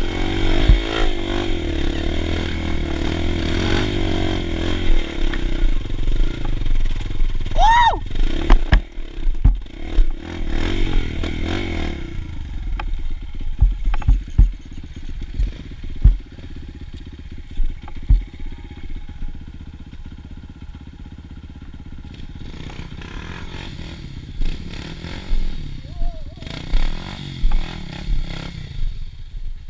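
Dirt bike engine running under throttle over a rough trail, with knocks and rattles and a brief rising-and-falling squeal about eight seconds in. At about twelve seconds it drops to a steady idle. Near the end a second dirt bike's engine revs up as it climbs.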